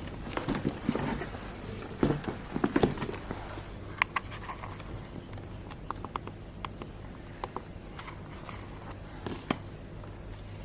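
Rustling with scattered light clicks and knocks of objects being handled, loudest in the first three seconds, then a run of small ticks, over a steady low hum.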